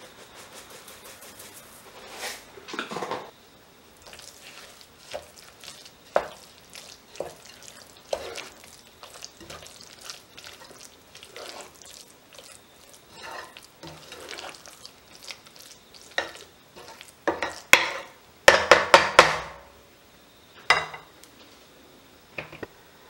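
A utensil stirring thick beef-and-gochujang paste in a pot. About three-quarters of the way in comes a quick run of loud knocks as the utensil is tapped against the pot, with a couple more single knocks near the end.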